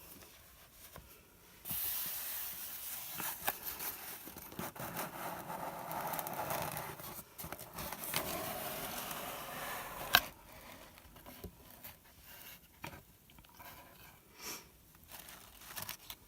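Subscription box being opened: packaging tearing and crinkling for several seconds, a sharp click, then softer scattered rustles and taps as the contents are handled.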